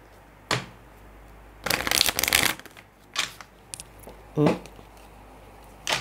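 Tarot cards being shuffled by hand: a quick flutter of card flicks about two seconds in, with single card snaps and taps before and after it.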